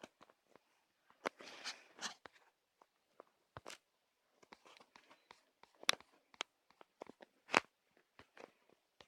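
Irregular short clicks and brief crunching, rustling noises, with the sharpest clicks about six and seven and a half seconds in.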